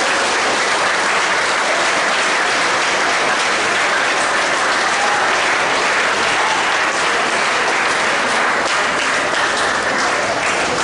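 A large crowd of students applauding steadily.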